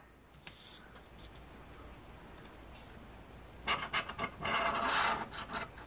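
A coin scraping the scratch-off coating of a lottery ticket in a quick run of short rasping strokes, starting a little over halfway in; before that, only faint handling ticks.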